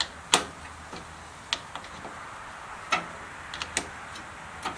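About ten short, sharp metallic clicks and light knocks at uneven intervals, the loudest about a third of a second in, from hand work on a riding mower's battery and its terminal connections.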